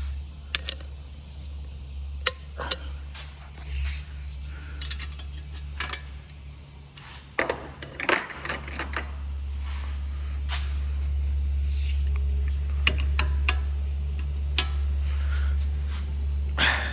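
Metal hand tools clinking and clanking as sockets and a breaker bar are handled on the bolts, with a cluster of sharper clanks about halfway through. A steady low hum runs underneath.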